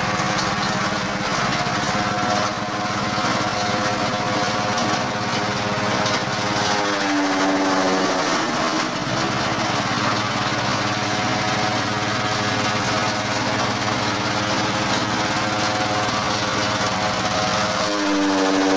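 Honda GX160 single-cylinder four-stroke engine running steadily at working speed, driving a Mahkota MCC-4200 grass chopper. Its note dips and recovers twice, about a third of the way in and again near the end, where grass stalks are being fed into the chopper.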